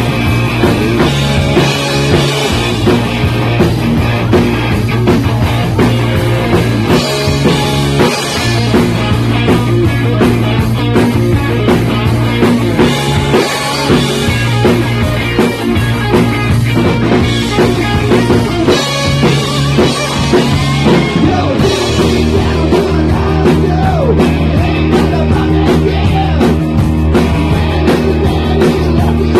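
Live rock band playing loud: electric guitars, bass and drums. About two-thirds of the way through, the song moves into a new section with a different bass line and busier cymbals.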